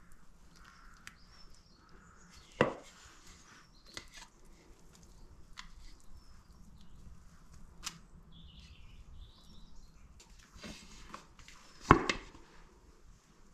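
Spatula scraping thick fruit cake batter out of a stainless steel mixing bowl into paper-lined cake tins, with a few sharp knocks of metal on metal, the loudest near the end.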